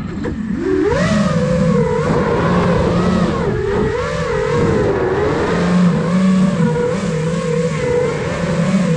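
iFlight Nazgul Evoque F5 five-inch FPV quadcopter's brushless motors and propellers whining. The pitch drops sharply just after the start, climbs back within about a second, then wavers up and down as the throttle changes.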